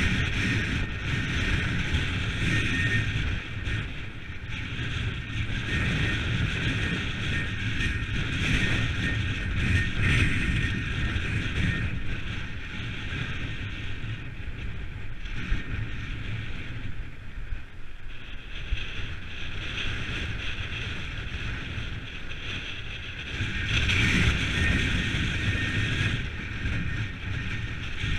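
Wind buffeting the microphone over the rumble and hiss of a mountain bike's tyres rolling along a dirt track, steady throughout and a little louder for a couple of seconds near the end.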